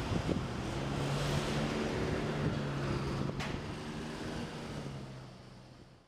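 Steady street noise with the low hum of an idling or slow-moving motor vehicle engine and some wind on the microphone, a single sharp click about three and a half seconds in, fading out near the end.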